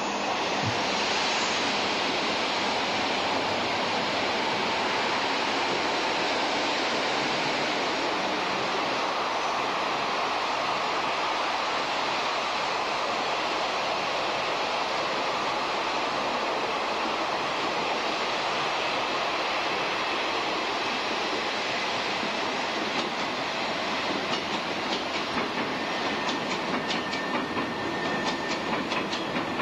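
Electric-locomotive-hauled passenger train passing close by: a steady rushing rumble of wheels on rail. In the last few seconds rhythmic clickety-clack joins in as wheels cross the rail joints.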